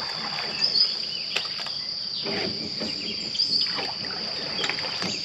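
Plastic leaf rake swishing and splashing through algae-choked pond water in several strokes. A steady high insect drone runs underneath.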